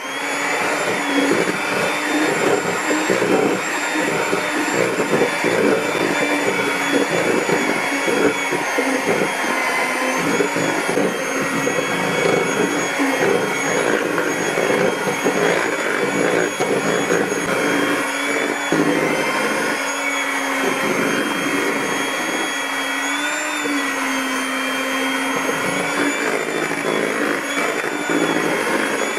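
Maspion electric hand mixer running steadily, its beaters churning a thick batter of margarine, sugar, egg white and flour in a stainless steel bowl. The motor's whine briefly rises in pitch about three-quarters of the way through.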